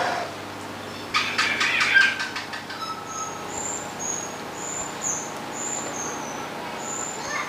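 Birds calling: a rapid rattling call about a second in, then a run of short, high chirps about twice a second.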